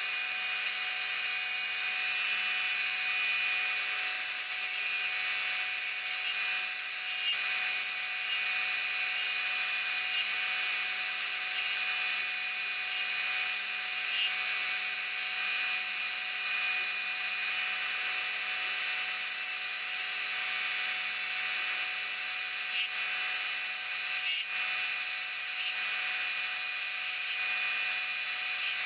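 Wood lathe running with a steady motor whine while a tool works a spalted maple pen blank, the cutting hiss coming and going in short irregular strokes.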